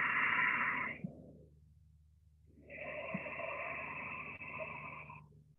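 Deep, slow breaths close to a body-worn microphone: one long breath ending about a second in, then after a short pause another long breath of about two and a half seconds. A faint steady low hum lies underneath.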